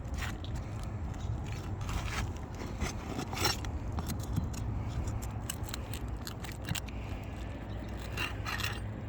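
Pry tool scraping and prying under brittle asphalt shingles to work the roofing nails loose: irregular short scrapes and clicks, loudest about three and a half seconds in and again near the end, over a steady low rumble.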